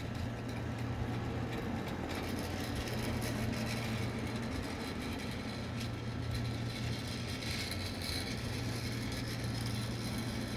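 Small electric motor of a toy train running steadily as the train travels around its track, a constant low hum.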